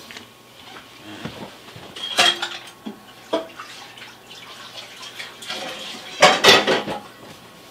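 A frying pan and kitchen utensils being handled and set down: a few separate clinks and knocks, then the loudest burst of clatter about six seconds in.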